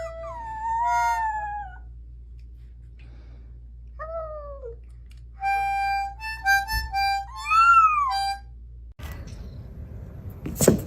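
Harmonica playing short held notes while a cat meows along, its drawn-out meows gliding up and down between the notes.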